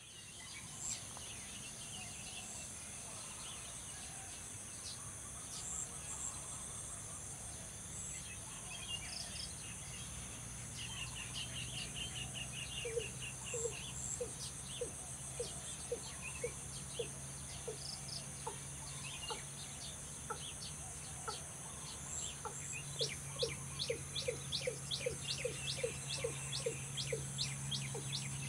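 Watercock calling: a series of short, evenly spaced notes starts about halfway through, pauses, then resumes faster near the end. Under it runs a steady high insect drone.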